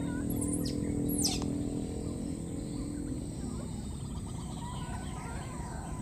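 Baby macaque calling with thin, high-pitched squeaks and chirps: the contact calls of an infant separated from its mother. Two sharp falling squeals come in the first second and a half, over a steady low hum that fades about halfway through and a thin steady high whine.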